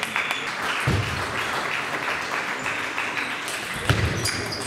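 Spectators applauding a point just won, a steady spell of clapping.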